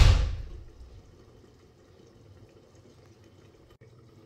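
Mustard oil poured from a plastic bottle into an empty pot: a splash loudest at the start that trails off within about a second, leaving only a faint steady background.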